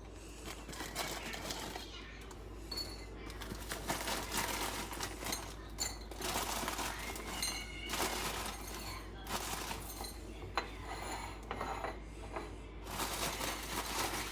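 Kitchen clatter: metal utensils clinking and scraping against cookware in a run of short, irregular knocks.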